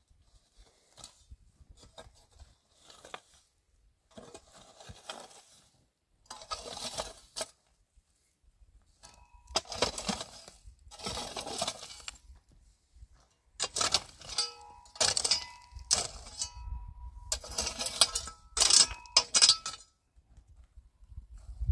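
Hard objects being handled, clinking and scraping in short bursts, some with a brief metallic ring. The clatter gets louder and busier in the second half.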